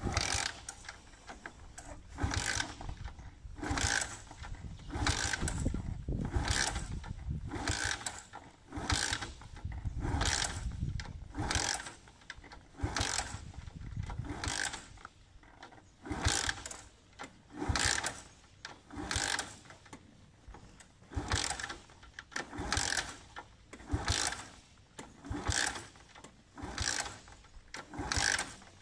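A small underbone (step-through) motorcycle being kick-started over and over, about twenty kicks, one every second and a half or so. Each kick is a short burst of the kickstarter and the engine turning over. The engine does not catch and run between kicks.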